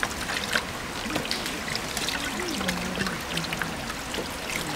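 Water pouring from a pipe into a metal sink over a raw chicken being rinsed by hand: steady running water with irregular small splashes.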